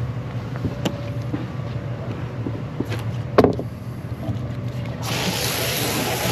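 A steady low hum with scattered clicks and a sharp knock about three and a half seconds in. About five seconds in, running water starts with a strong steady splashing hiss, as from a tap or hose at a fish-cleaning station.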